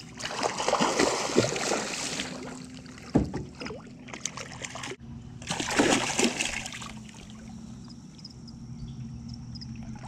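A hooked blue catfish splashing and thrashing at the surface beside the boat as a hand reaches into the water to grab it. The splashing comes in two spells, over the first couple of seconds and again from about five and a half to seven seconds in, with a single knock around three seconds in.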